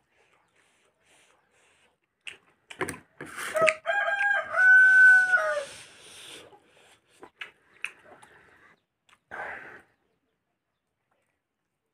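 A rooster crows once about four seconds in: one call of about two seconds, its last note held and then dropping at the end. Around it come soft clicks and smacks of eating by hand.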